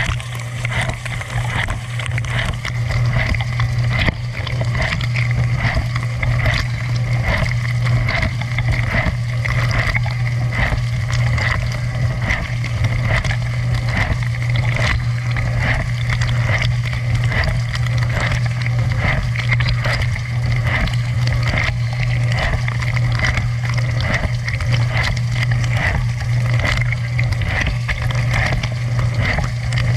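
Dishwasher running a wash cycle, heard from inside the tub: the pump hums steadily while water sprays and splashes against the walls and racks.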